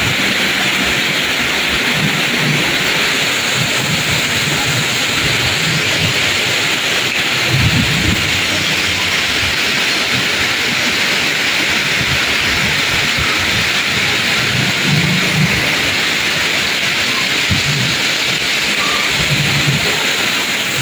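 Torrential rain pouring down in a steady, loud hiss, heavy enough to flood the ground, with occasional low rumbles underneath.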